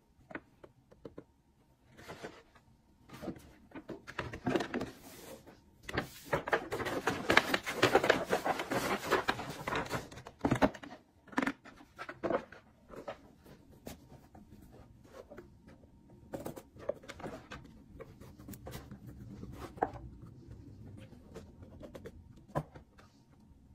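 Hands handling cardboard shoe boxes and unwrapping shoes from a cloth dust bag: a stretch of dense rustling from about six to ten and a half seconds in, among scattered light taps and knocks of cardboard lids and shoes.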